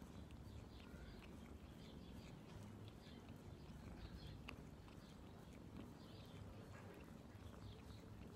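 Quiet, soft wet licking of a domestic cat grooming its paw, faint tongue clicks coming irregularly a few times a second.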